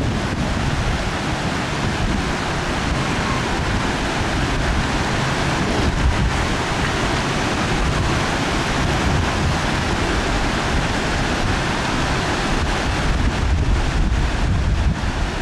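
Steady rush of a fast mountain stream, with wind buffeting the microphone.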